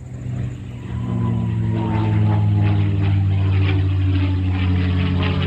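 Single-engine piston warbird's propeller engine droning as the plane comes toward and over the crowd, growing louder over the first couple of seconds, then running loud and steady.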